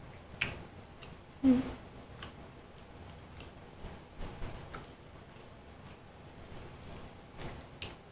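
Quiet eating sounds from someone eating soft cheese bread bites by hand: scattered light mouth clicks and chewing. A brief low-pitched sound about one and a half seconds in is the loudest moment.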